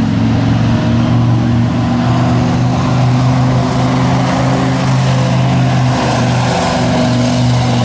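Pickup truck engine held at high, steady revs as the truck drives through a mud-bog pit, with a slight waver in pitch about six seconds in.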